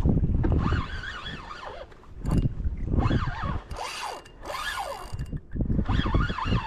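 Fishing reel's drag whining in surges, its pitch rising and falling as a big redfish pulls line off. A low rumble comes and goes, loudest at the start, and there is a brief bright hiss a little past the middle.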